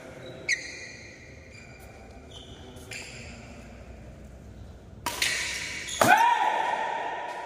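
Badminton rally: about four sharp racket hits on a shuttlecock, the loudest about six seconds in. Each hit is followed by a ringing tone, and after the last comes a rising, then held squeak of shoes on the court floor.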